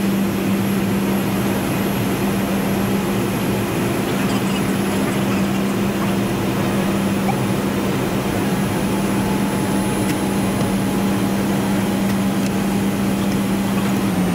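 Steady drone of an ATR 42-500's twin turboprop engines and propellers heard inside the flight deck on approach: a strong, even low hum over a constant rush of airflow.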